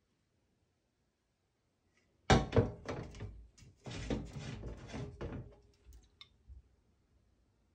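Two filled aluminium drink cans knocked down onto a ribbed stainless-steel sink drainboard, two sharp knocks about two seconds in, then clattering and scraping as they are shifted and one is picked up, with a few lighter knocks tailing off.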